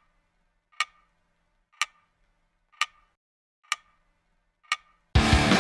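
Clock-tick sound effect: five sharp ticks about a second apart. Loud rock music with guitar cuts in suddenly near the end.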